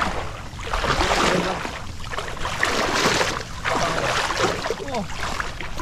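Water sloshing and splashing around legs as people wade thigh-deep through a muddy creek, swelling with each stride about once a second.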